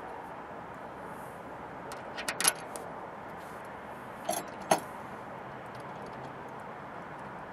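Metal clinking and rattling from a running-board support bracket and its bolt hardware being hooked on and handled under the truck: a short run of clinks about two seconds in and another about four and a half seconds in, over a steady hiss.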